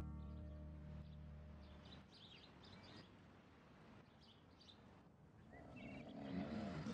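Faint birdsong, scattered short high chirps, after the tail of a music cue fades out in the first two seconds. Near the end, a low sound starts to build.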